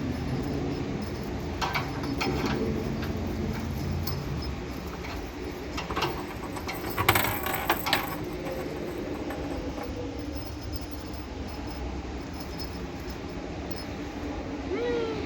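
Rustling and handling clicks over a low steady rumble, loudest in a burst about halfway through, then a short kitten mew near the end.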